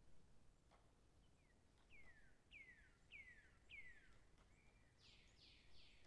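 A songbird singing faintly: four clear whistled notes, each sliding down in pitch, about two thirds of a second apart, then near the end a quicker run of four fuller, higher notes.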